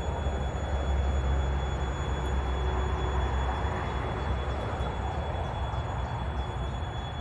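Train running past with a steady low rumble and hiss.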